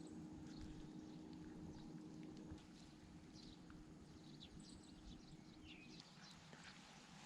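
Near silence: faint outdoor ambience with scattered short, high chirps and a faint steady hum that stops about six seconds in.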